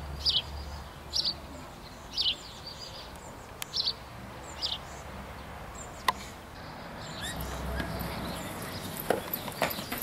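A songbird repeating a short high call about once a second, five times in the first five seconds. Near the end, quick footsteps and scuffing start as children run.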